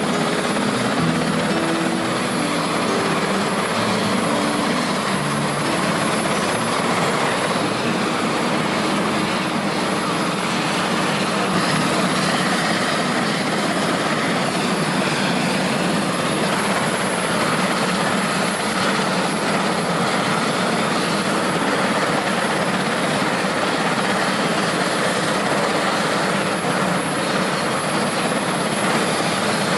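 Helicopter in flight: a steady, unbroken din of engines and rotor.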